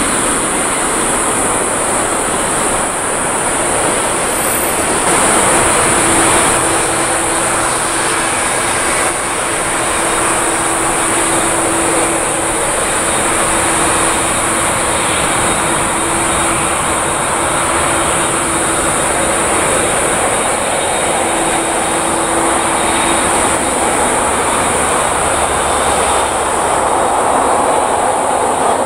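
Boeing 787-10 airliner's jet engines running at taxi power: a steady roar with a high whine over it, and a low hum that comes in about six seconds in and fades about two-thirds of the way through.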